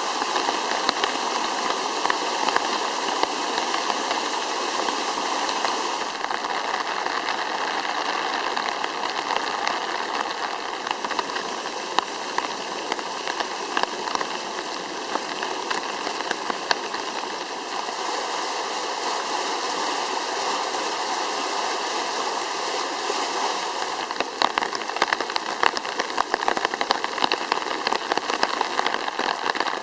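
Muddy stormwater runoff rushing through a flooded ditch and out of a stone culvert in torrential rain: a steady rush of water with rain falling. The texture shifts at a few cuts, and sharper ticks join near the end. The water is overflowing a rainwater drainage network too small for it.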